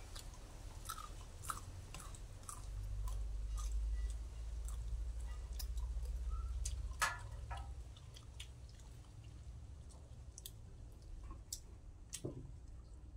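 Close chewing and mouth sounds of people eating fish curry by hand, with scattered small clicks and taps. A low rumble sits underneath for a few seconds in the middle.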